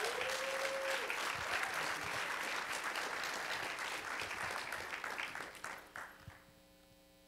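Audience applauding, the clapping dying away about six seconds in and leaving only a faint steady electrical hum.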